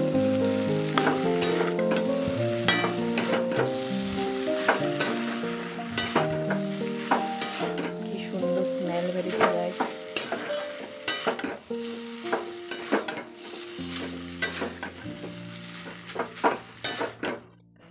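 Chow mein noodles sizzling as they are stir-fried in a wok, with a spatula clicking and scraping against the pan, over background music of sustained notes. Both stop abruptly near the end.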